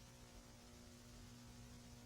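Near silence: a faint steady electrical hum under low hiss.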